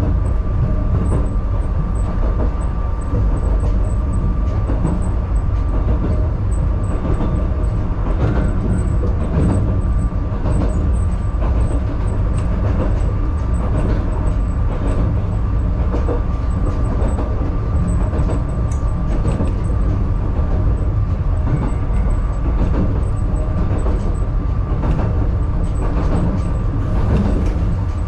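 Narrow-gauge (762 mm) electric train running on the Yokkaichi Asunarou Railway Utsube Line, heard inside the driver's cab: a steady low rumble of the running gear with a faint steady tone and scattered clicks of the wheels on the track.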